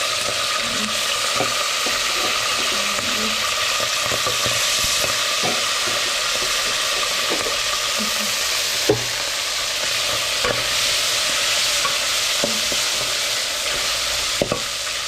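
Golden-browned onions and boiled beef sizzling steadily in hot oil in a cooking pot as they are stirred, with scattered knocks of the spoon against the pot, the sharpest a little before nine seconds in and two close together near the end.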